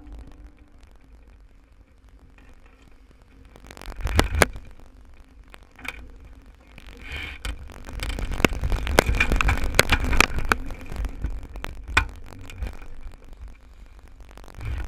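Wind buffeting the microphone and water rushing past the hull of a Thistle sailing dinghy under way, with scattered knocks and clicks of rigging, fittings and crew moving about the boat. It is quiet for the first few seconds, then busiest and loudest from about eight to eleven seconds in.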